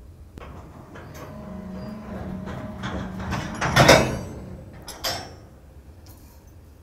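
A string of covered hopper freight cars jolting as slack runs through their couplers: a rolling series of metal clanks and bangs that builds to a loud crash about four seconds in, with a sharper bang about a second later.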